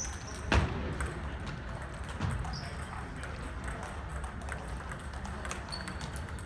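Table tennis balls clicking off rackets and tables, with several tables in play in a gym. There is a louder knock about half a second in and a second, smaller one about two seconds in, plus a few brief high squeaks.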